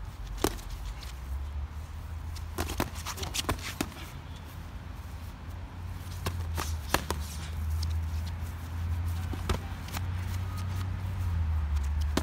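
Boxing gloves smacking as punches land and are blocked in sparring: a scatter of sharp slaps, several in quick succession, with feet shuffling on grass. A steady low rumble runs underneath and grows louder near the end.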